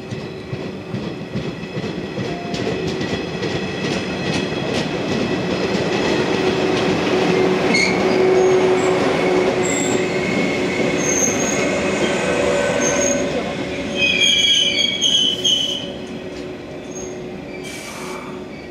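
Yellow JR West electric train of the B18 formation running past close by on the platform track: steady running noise with wheels clicking over rail joints and a high wheel squeal. The sound builds as it comes near, has a sharper burst of squeal about fourteen seconds in, then dies away as the train moves off.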